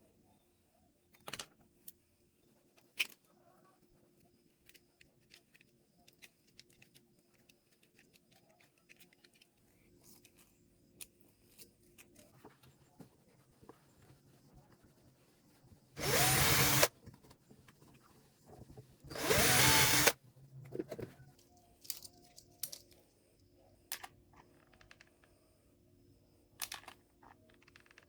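A small power drill runs in two short bursts, each about a second long and a couple of seconds apart, with light clicks and taps of handling in between.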